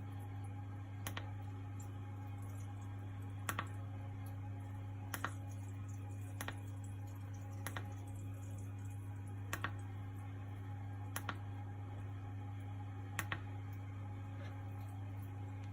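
Sharp clicks of buttons or the control knob being worked on a Nibe heat pump's control panel, about nine of them, often in quick pairs, a second or two apart, over a steady low hum.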